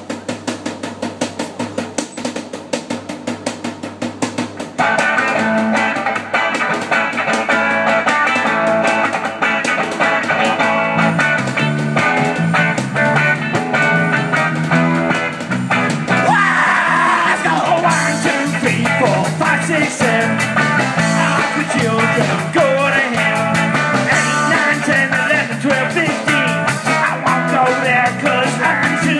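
Live garage rock band playing: a sparse, choppy beat opens the song, then about five seconds in the full band of drums, electric guitars and harmonica comes in louder, with singing.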